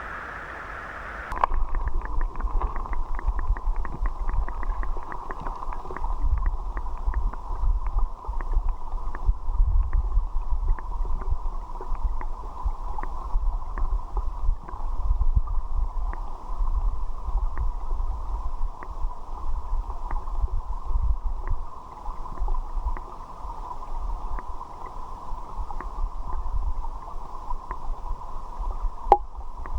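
Flowing river water heard underwater by a submerged camera: a muffled low rumble of the current, sprinkled with many small clicks and ticks. The sound switches abruptly to this about a second and a half in as the camera goes under.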